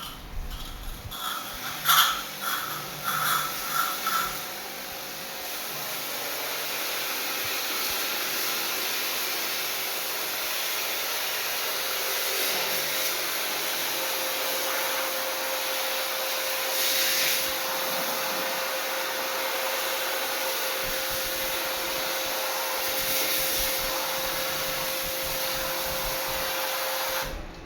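Air conditioner running, with a steady rush of blown air that builds over the first few seconds and a faint steady hum joining about halfway. A few knocks and short tones come just before the airflow starts, and it cuts off suddenly near the end.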